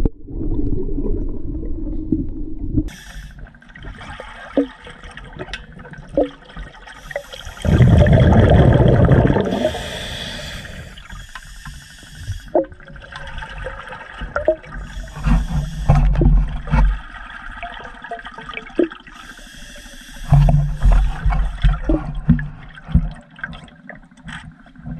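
Scuba breathing heard underwater through the camera: a hissing regulator on each inhale, then a low rumbling rush of exhaled bubbles, repeated several times, with the loudest bubble burst about a third of the way in. Small clicks and knocks come in between.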